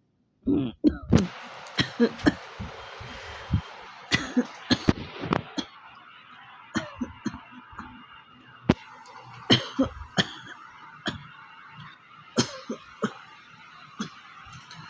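A person's dry cough from a real illness: a quick cluster of harsh coughs about half a second in, another fit around four seconds, then single coughs every second or so.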